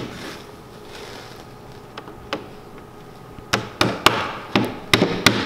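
Knocks on the oriented strand board (OSB) panels of a boat building form as its pieces are tapped and seated into place: one sharp knock at the start, two lighter ones around two seconds in, then a quick run of about seven knocks in the last two seconds.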